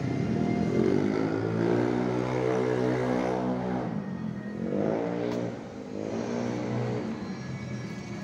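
Street traffic: passing motor vehicles accelerating, their engine pitch rising about half a second in, holding for a few seconds, then rising twice more near the middle and later on, over a steady hum of street noise.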